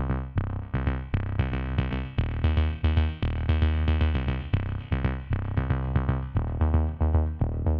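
Electronic background music: a synthesizer riff of short repeated notes over a deep bass line and drum-machine beat.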